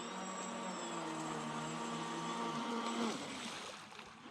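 Electric motor of an RC speedboat whining at speed, its pitch shifting a little, then falling and fading about three seconds in.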